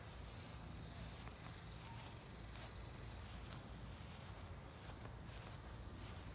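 Faint outdoor ambience: insects chirring in a steady high-pitched drone over a low rumble.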